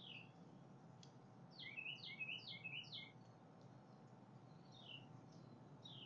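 A songbird singing faintly: a quick run of four falling whistled notes, with single falling chirps before and after.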